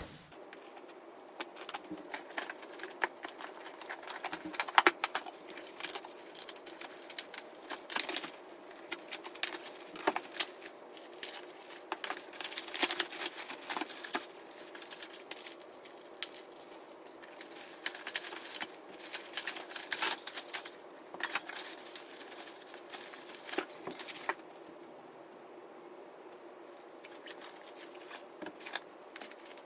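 Packaging being handled and opened: rustling, crinkling and tearing with many sharp clicks and knocks, over a faint steady hum. Quieter for a few seconds near the end.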